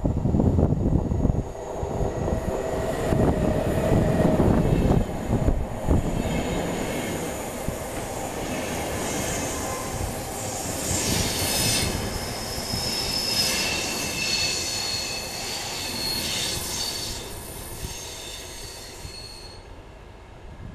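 Finnish InterCity2 double-deck train, hauled by an Sr2 electric locomotive, arriving along the platform. A heavy rumble of wheels on rail over the first few seconds gives way to high-pitched brake and wheel squeal as the train slows, and this fades out near the end.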